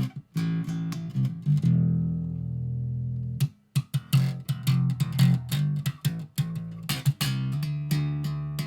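Intro music led by plucked electric and bass guitar, with a short break about three and a half seconds in.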